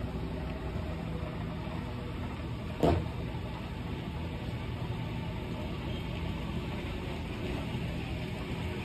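Vehicle engine running steadily at idle while vehicles are being moved around, with one sharp knock about three seconds in.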